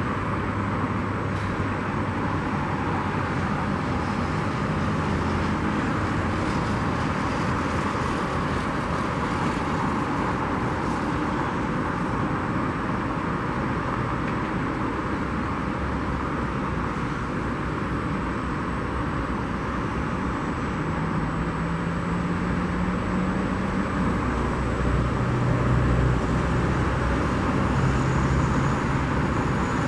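Boeing 777-300ER's GE90 jet engines at taxi power, heard from a distance as a steady engine noise, growing a little louder in the last few seconds.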